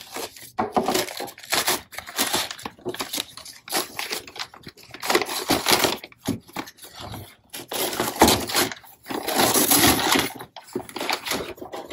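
Brown wrapping paper being slit with a small knife and then ripped and torn off a cardboard box, crinkling and rustling in irregular bursts.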